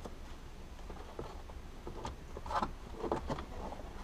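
Scattered light clicks and knocks of hands and tools working on plastic car dashboard trim, with a small cluster of louder knocks near the end, over a low steady hum.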